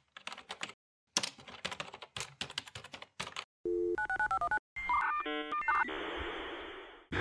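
Rapid keyboard clicks, then a dial tone, a quick run of touch-tone dialing beeps, and a dial-up modem connecting: warbling handshake tones that turn into a steady hiss and cut off suddenly near the end.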